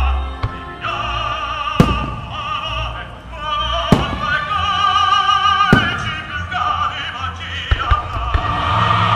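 Firework shells bursting: three sharp bangs about two seconds apart, then a few smaller cracks near the end. Under them runs music with a singing voice with wide vibrato.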